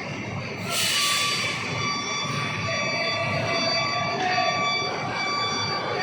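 A sharp hiss of released air from a truck's air brakes about a second in, followed by a steady high-pitched whine with a buzzing edge.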